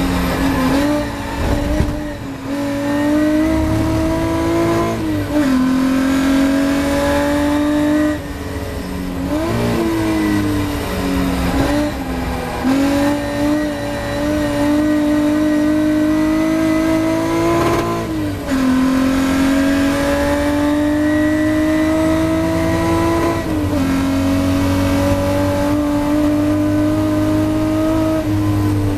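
Ford Capri V6 race car engine heard from inside the cockpit at racing speed. The engine note climbs steadily under acceleration and drops sharply at each gear change, several times over.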